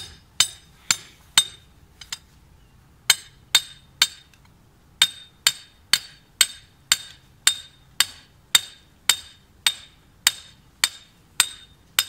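Claw hammer striking the top of a steel reinforcing rod, driving it into the ground: sharp metal strikes with a clinking ring, about two a second, with short pauses after about a second and a half and again around four seconds in.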